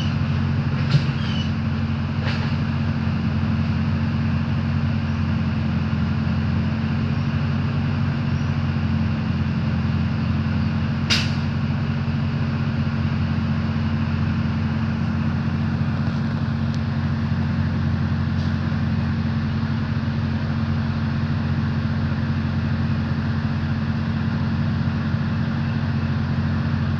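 A large truck's diesel engine idling, a steady low drone that does not change, with one sharp click about eleven seconds in.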